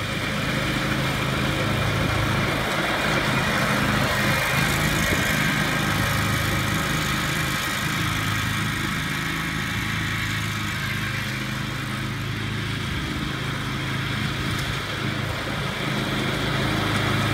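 John Deere 727 zero-turn riding mower's engine running steadily as the mower is driven over the grass. It gets a little quieter about halfway through as the mower moves away, then louder again near the end as it comes back.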